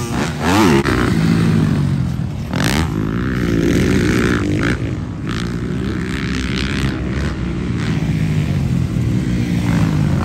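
Motocross dirt bike engines revving, their pitch rising and falling again and again as the riders work the throttle around the track, loudest about a second in.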